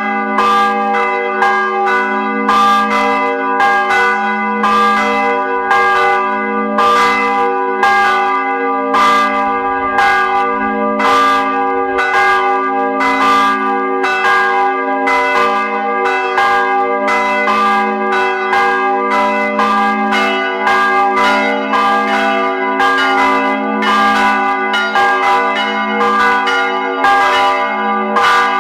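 Three church bells swinging and ringing together, their clappers striking in a dense, overlapping peal over a steady wash of ringing tones.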